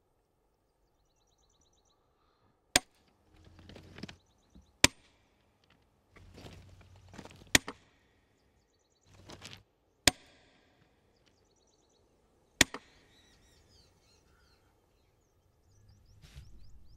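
Five sharp, loud knocks about every two and a half seconds, each one sudden, with a rough, rustling noise swelling between them.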